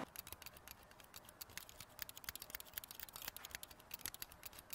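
Faint, rapid, irregular clicking.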